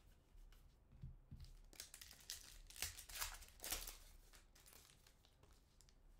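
Foil wrapper of a trading-card pack crinkling and tearing as it is ripped open, a quick run of sharp rustles lasting about two seconds in the middle.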